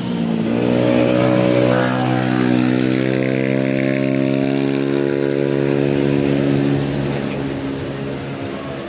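A vehicle engine picks up revs and then holds a steady note for several seconds, fading out near the end.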